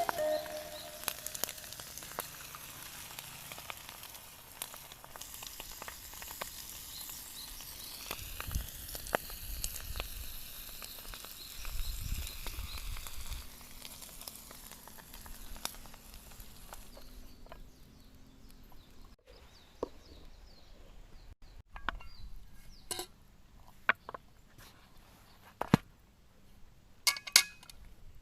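Food sizzling as it fries in a pan over a campfire, with many small crackles. About two thirds of the way in the sizzling drops away, and a few sharp clicks and knocks follow.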